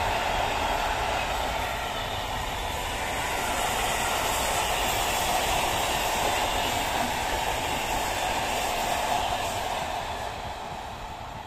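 Passenger coaches of a long locomotive-hauled express train rolling past at speed: a steady rush of wheels on rail that fades near the end as the train draws away.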